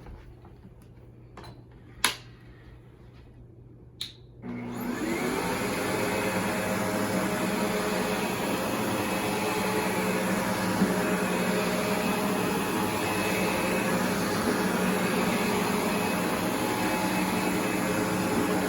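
Two sharp clicks, then about four and a half seconds in the Windsor Sensor S12 commercial upright vacuum switches on. Its motor spins up quickly and runs steadily with a whine.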